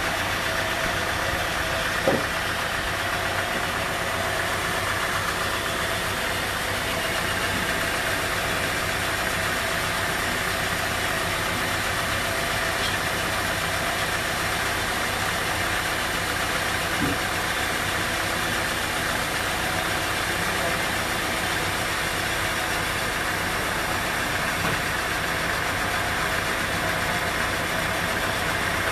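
Band sawmill running steadily while a teak log is fed through the blade, with one sharp knock about two seconds in.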